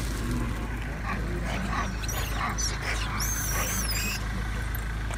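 High-pitched animal squeals and short gliding calls, with one shrill, drawn-out scream about three seconds in, over a steady low hum.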